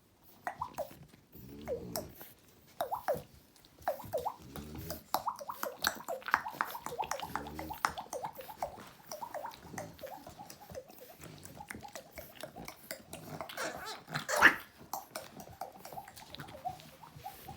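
French bulldog puppies making many short, high, falling squeaks and whines, mixed with low grunting noises. One sharp knock sounds about fourteen seconds in.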